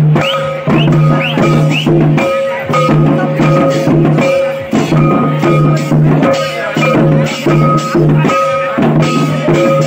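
Loud drum-led dance music with a steady, evenly repeating beat.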